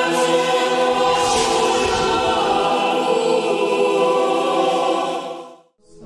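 Choral intro music: a choir holding a sustained chord, with a swelling whoosh and low rumble about a second in. The music fades out near the end and a different chant-like piece begins.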